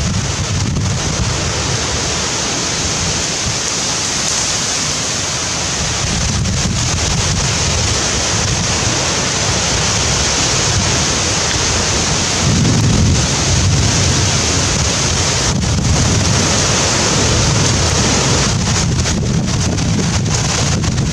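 Wind buffeting the microphone: a steady rushing noise with a gusty low rumble.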